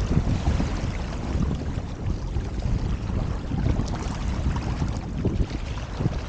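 Wind buffeting the microphone in gusts over the rush and splash of water along the hull and outrigger of a Hobie Tandem Island sailing kayak moving fast under sail.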